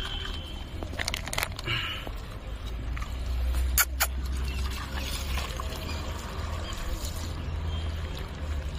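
Puppies eating biscuits from a clay bowl, with a few sharp crunches, twice about a second in and twice near four seconds in, over a steady low rumble.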